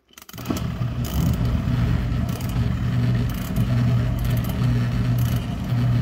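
Folding portable washing machine's wash motor starting just after the timer dial is set, then running steadily with a low hum as it agitates a load of clothes in water.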